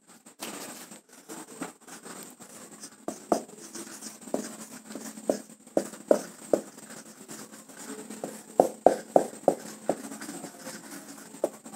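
Marker pen writing on a whiteboard: a run of short strokes and taps as letters are written, starting about three seconds in and coming thickest near the end.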